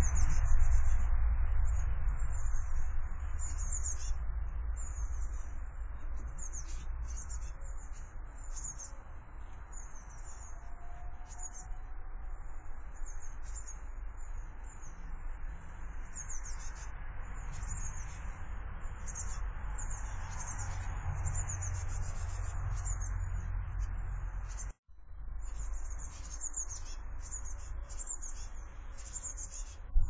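Small garden birds chirping and calling in many short, high notes over a steady low rumble. The sound cuts out for a moment about 25 seconds in.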